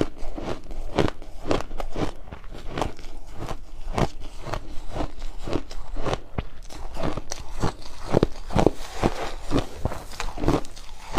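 Hard ice, gem-shaped 'jewelry ice', being bitten and chewed close to the microphone: a steady run of sharp, crunchy cracks, about two or three a second.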